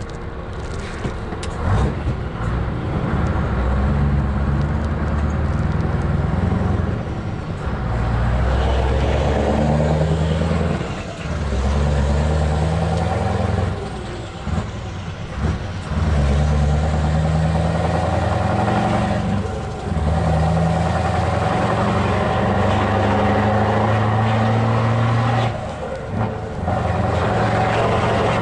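Scania V8 diesel truck engine heard from inside the cab, pulling through the gears with a deep rumble. Its pitch climbs and then falls back at each of several gear changes, with a short dip in loudness at each change.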